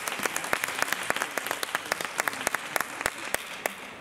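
Audience applauding and clapping, the claps thinning out and fading toward the end.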